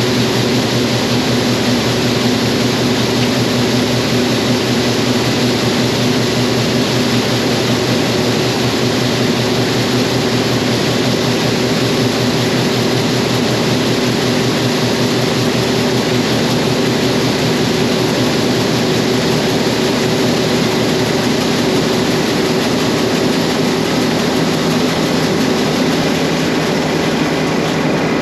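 John Deere combine running steadily while harvesting corn, its engine hum under the even rushing noise of the threshing and separating machinery.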